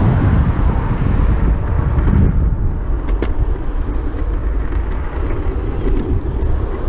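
Steady rumble of a waveboard's small caster wheels rolling on asphalt, mixed with wind buffeting the microphone, and a faint click or two about three seconds in.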